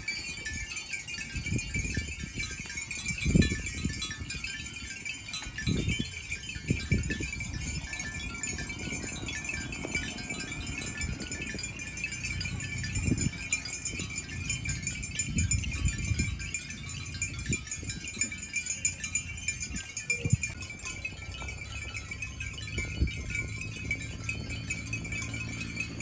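Many bells on a herd of walking water buffalo jingling and clanking together in a steady, dense high ringing, with dull low thumps now and then.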